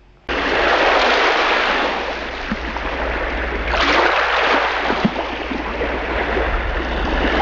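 Ocean surf: waves washing in, a steady rush that starts suddenly and swells again about four seconds in.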